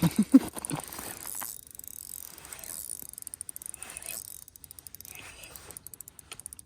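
Fishing reel clicking rapidly as it is worked, a quick even run of ratchet clicks, after a few short louder sounds in the first second.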